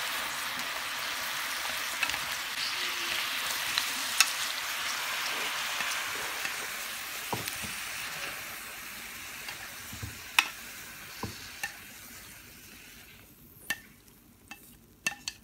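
Pak choi sizzling in a hot oiled pan as it is stir-fried, with scattered sharp clicks of utensils. The sizzle fades away over the last few seconds, leaving only a few clicks.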